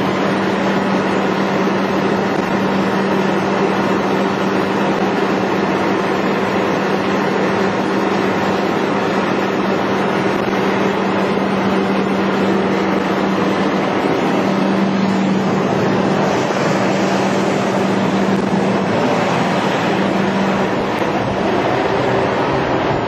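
Utility bucket truck's engine running steadily: a constant low hum under an even rushing noise.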